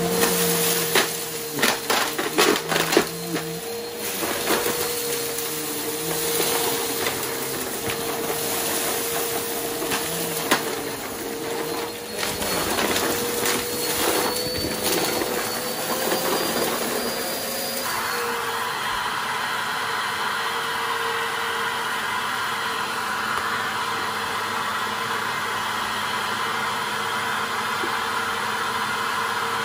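Upright vacuum cleaner running, sucking up a pile of dirt and debris from a rug, with debris crackling and rattling up through it during the first half. Its steady whine rises slightly, then drops about two-thirds of the way through, after which the machine runs with a smoother, steadier rush.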